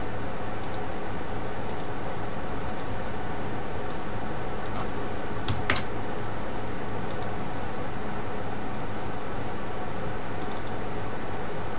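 Scattered light clicks from working a computer, often in quick pairs and spaced a second or more apart, over a steady hiss. One click a little past halfway is louder.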